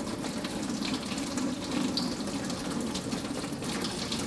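Engine coolant pouring steadily from the car into a plastic bucket, a continuous trickling splash.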